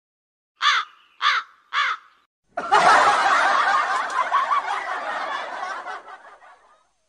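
Comedy sound effects: three short cawing calls, like a crow, about half a second apart. Then, about two and a half seconds in, a burst of audience laughter starts suddenly and slowly fades away.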